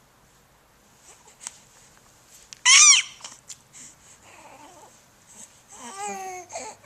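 Two vocal noises: a short, loud, high-pitched squeal about two and a half seconds in, then a longer, lower call falling in pitch near the end.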